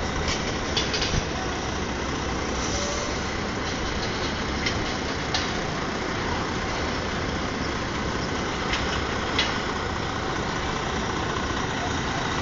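Semi-truck tractor's diesel engine running steadily at low revs as the rig crawls along with an oversized load, with a few light clicks.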